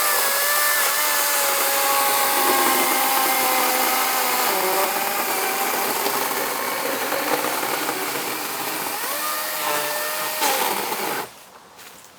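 Kobalt 24-volt battery electric chainsaw cutting into a tree trunk, its motor whine dipping in pitch as the chain loads up in the wood and rising again as it frees. The saw stops about eleven seconds in.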